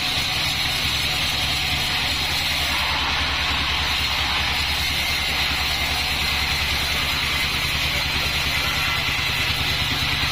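Band sawmill running steadily: a low, fast-pulsing machine hum with a steady hiss above it that does not change.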